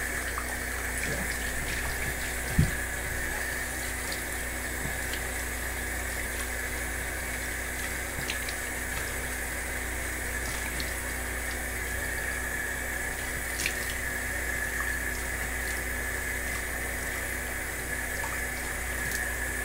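A faucet running steadily into a sink while a face is rinsed clean of cleanser with splashed water. A sharp knock comes about two and a half seconds in.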